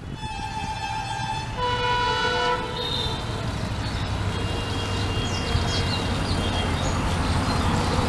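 EMD WDP-4 diesel locomotive sounding its multi-tone horn in two blasts at the start, the second on a different chord. After that its low engine and rail rumble grows steadily louder as it approaches.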